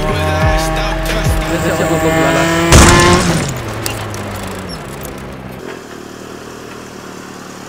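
Car engine and road noise from a night street race, mixed with a music track that holds and steps between notes. There is a sharp, loud hit about three seconds in, then the sound settles to a lower, steady background.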